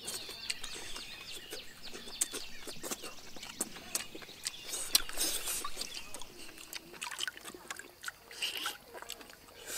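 Close-up eating sounds of a person biting and chewing cooked eel: wet lip-smacks and mouth clicks, many short ones in a row.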